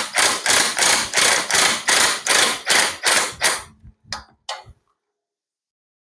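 Hammer pounding on steel truck front-suspension parts, about three blows a second, with two more blows after a short pause, then it stops abruptly: hammering to bust a tie rod or ball joint loose.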